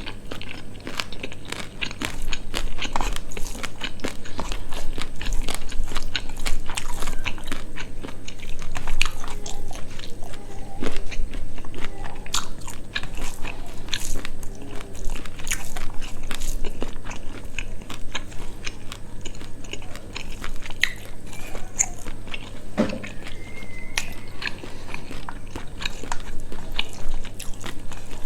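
Close-miked eating: chewing and biting with crunching and wet mouth clicks, irregular and continuous, as spicy quail meat with rice and salad is eaten.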